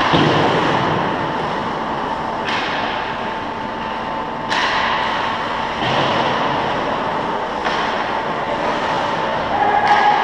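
Ice-rink ambience: a steady noisy rumble carrying a constant mid-pitched tone, with sudden swells of rushing noise about every two seconds.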